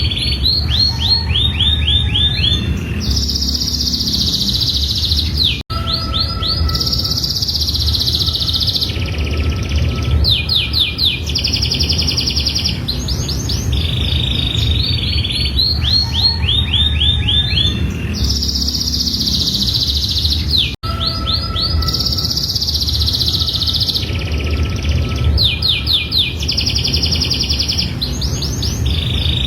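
Domestic canary singing a long continuous song of fast high trills and rolls in repeating phrases, over a steady low rumble. The sound cuts out for an instant twice, and the same song passage comes round again about every fifteen seconds.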